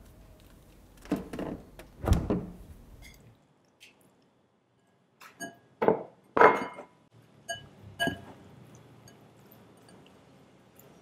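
Two dull thuds at a refrigerator, then a rubber spatula mixing chicken fillet in a glass mixing bowl: a run of sharp clinks against the glass with a short ringing tone, the loudest about halfway through.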